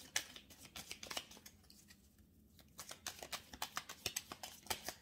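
A deck of oracle cards being shuffled by hand: quick dry clicks of card edges slapping together, in two bouts with a short pause about two seconds in.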